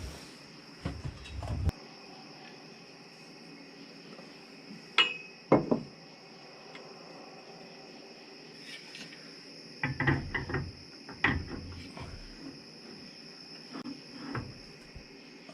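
Steady high trill of crickets, broken by scattered knocks and metal clatter of hands and tools fitting a work light onto the excavator. Two sharp knocks come about five seconds in and a cluster of clanks around ten to eleven seconds in.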